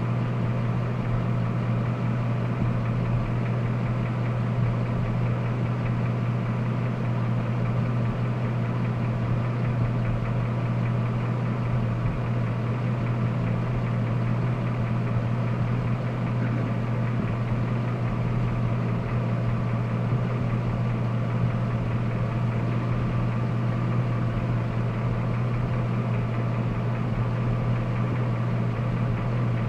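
Jasper remanufactured GM 5.3 V8 idling steadily with a deep, even hum, run so that an unidentified noise from it can be heard.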